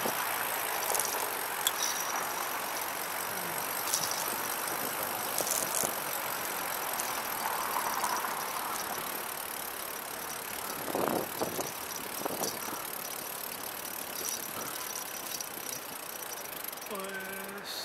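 Bicycle riding along a city street with steady tyre and wind noise and traffic around it, broken by a few light clicks and rattles. A short pitched tone sounds near the end.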